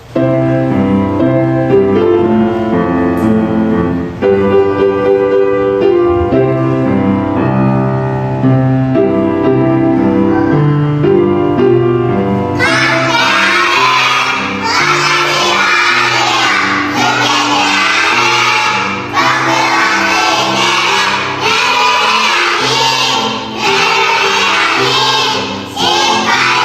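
Backing track of a children's song: an instrumental introduction for about twelve seconds, then a group of young children singing together over the music.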